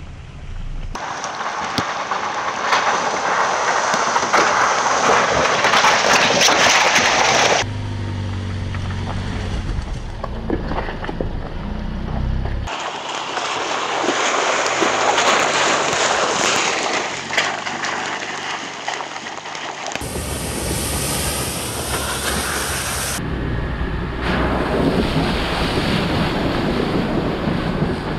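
Ford Bronco Everglades driving a wet, muddy off-road trail across several shots: a loud rush of tyres through mud and puddles, with wind on the microphone. A stretch of about five seconds partway through has the engine's steady low hum to the fore.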